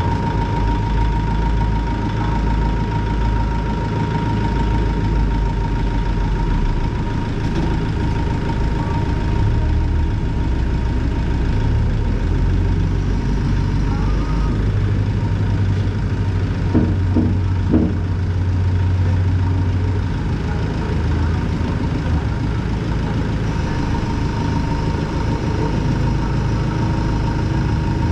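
Kubota L6060 tractor's diesel engine idling steadily, with a steady high-pitched tone over it that fades out in the middle and comes back near the end. A few short knocks sound about two-thirds of the way through.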